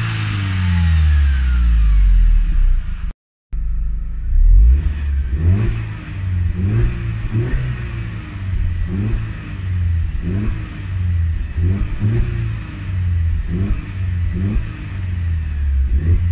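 Mercedes-Benz SLK 200 Kompressor's supercharged four-cylinder engine being revved through its exhaust. About three seconds in, the sound cuts out briefly and the engine is then heard from inside the cabin, its pitch rising and falling a little more than once a second in repeated blips.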